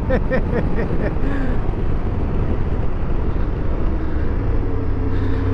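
Aprilia Tuareg 660 rolling off the throttle and slowing on a dirt road, mostly wind rush and tyre noise over a low rumble. The parallel-twin engine's low steady note comes back in about four and a half seconds in.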